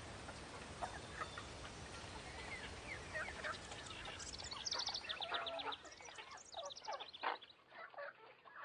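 Faint chickens clucking with small birds chirping, short scattered calls and a quick trilled run of chirps about halfway through.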